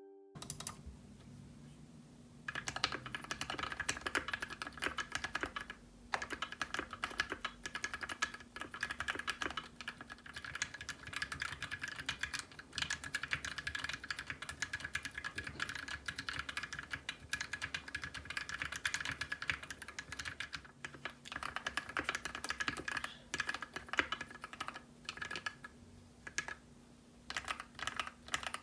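Fast continuous typing on a custom mechanical keyboard with PBT keycaps: a dense run of keystroke clacks with a couple of short pauses. It is typed with sound-dampening foam in the case, then without the foam, then with it again. The uploader holds that a case without foam sounds hollow.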